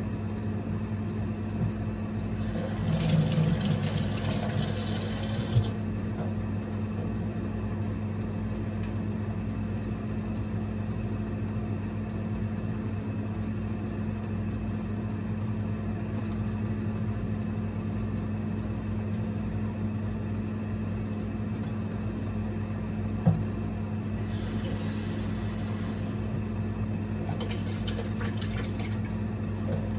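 Steady low electrical hum with two spells of running water: one about three seconds in, and another from about 24 seconds to near the end. Two sharp knocks come about five and a half seconds in and again about 23 seconds in.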